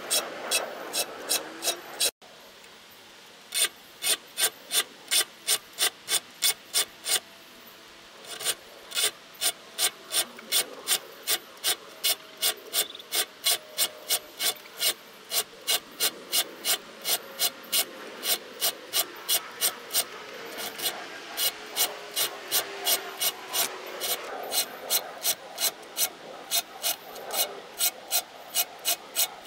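A small saw file rasping across the steel teeth of an 1886 Henry Disston & Son tenon saw, sharpening them in quick, even strokes at about two to three a second, with two short pauses between runs of strokes.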